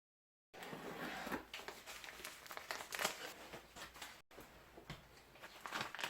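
Crinkling and rustling of material being handled, with scattered sharp clicks and knocks. It starts about half a second in and breaks off briefly a little past four seconds.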